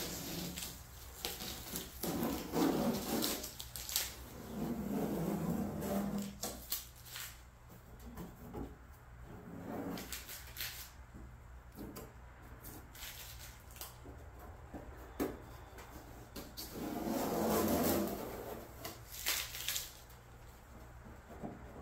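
Blue painter's tape being peeled off a car hood and crumpled into a ball by hand: irregular rustling and crackling with sharp clicks, in a few louder stretches.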